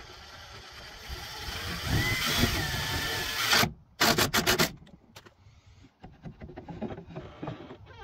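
Ryobi cordless driver running a screw into the wooden latch, its motor whining and rising for about two and a half seconds, then a quick rattle of sharp knocks. After that come light wooden clicks and knocks as the dowel peg is handled.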